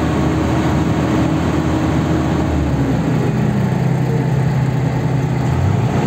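BOMAG road roller's diesel engine running, its revs raised with the dashboard throttle button; the engine note shifts about halfway through.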